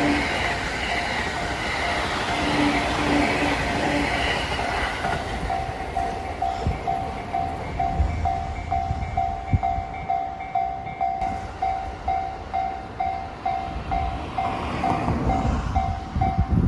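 A train passes the level crossing, loud for about the first five seconds while the crossing alarm bells ring. Once it has gone, the Japanese electronic level-crossing bell keeps ringing steadily, about two strikes a second, with a second, higher-pitched alarm sounding beside it.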